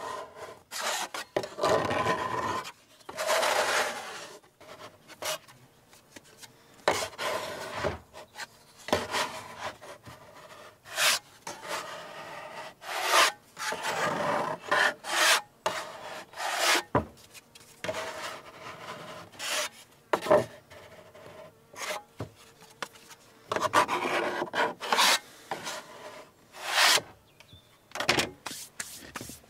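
Dough scrapers scraping and knocking on a floured wooden cutting board while bread dough is cut, turned and shaped by hand: irregular rubbing scrapes broken by short sharp taps.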